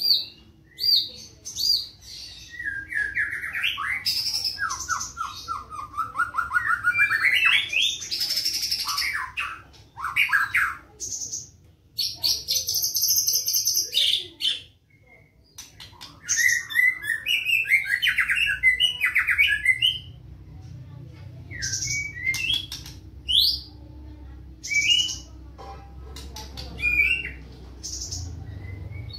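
White-rumped shama (murai batu, black-tailed form) singing a fast, varied song of high whistles, rapid trills and harsher chattering notes, broken by short pauses.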